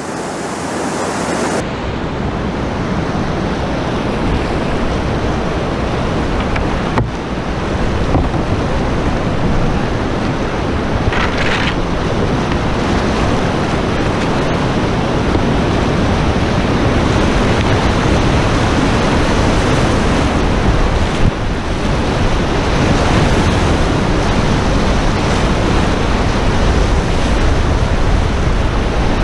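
Whitewater rapids rushing and churning around the bow of a canoe: a loud, steady roar of water, with a few short sharp knocks about 7, 11 and 14 seconds in.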